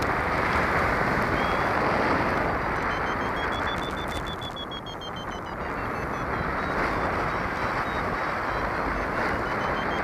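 Wind rushing over the microphone of a paraglider in flight, a steady rushing noise. Faint beeping from a flight variometer runs over it, in quick pulses that slowly rise and fall in pitch.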